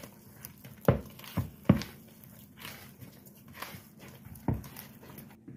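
A hand squishing and working wet, sticky dough in a plastic bowl, with a few dull thumps as the dough is pressed against the bowl, the loudest about a second in.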